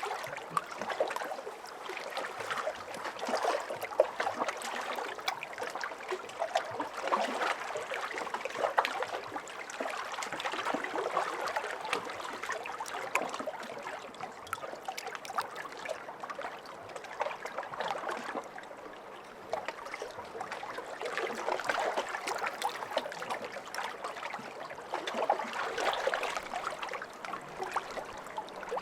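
Lake waves lapping with many small splashes and trickles, swelling and easing every few seconds.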